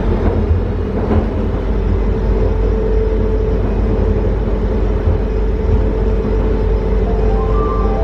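MRT (metro) train running at steady speed: a constant low rumble with a held motor hum.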